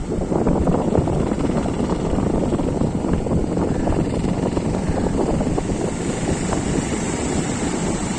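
Strong sea wind buffeting the microphone: a loud, gusting low rumble.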